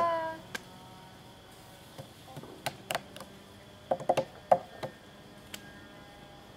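Scattered sharp hand claps and slaps, singly or in quick groups of two or three, with quiet between.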